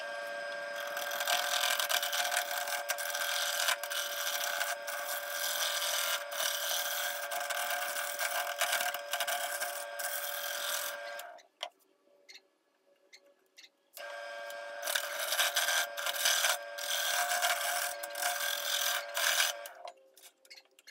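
Mini wood lathe spinning a wooden blank while a turning gouge rounds it into a handle: a steady motor whine under the rasp of the tool cutting wood. The sound breaks off for a few seconds about halfway, then starts again and stops near the end.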